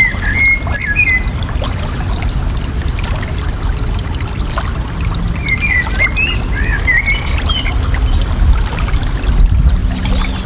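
Steady flowing, trickling water. Birds chirp in quick twittering phrases near the start and again from about halfway.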